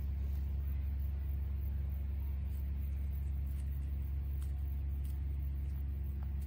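Steady low rumble of a running motor, with a few faint light clicks above it.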